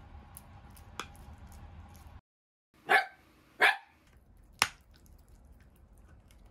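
Italian greyhound gnawing a deer-antler chew, its teeth clicking and scraping on the antler. About three seconds in come two short, loud vocal sounds from the dog, then one sharp click of teeth on antler.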